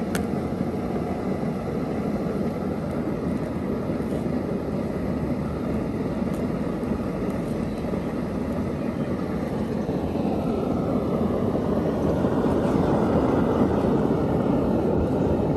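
Steady rushing roar of a burner flame under a covered pan of steaming bitter gourds, swelling slightly about ten seconds in.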